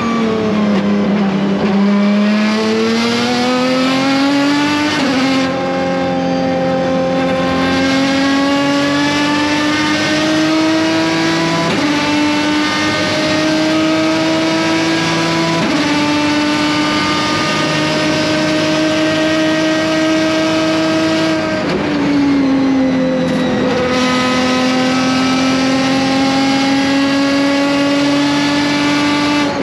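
Aston Martin DBR9's V12 race engine running hard on track. Its note dips and then climbs, holds high for long stretches with a few sudden steps in pitch at the gear changes, and falls back briefly about three-quarters of the way through before settling again.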